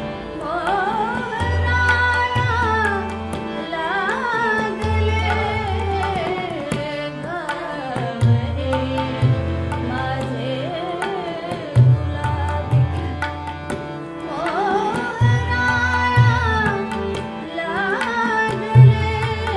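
A woman singing a Marathi ghazal in long, ornamented phrases, accompanied by harmonium and tabla, the tabla's deep bass strokes sounding throughout.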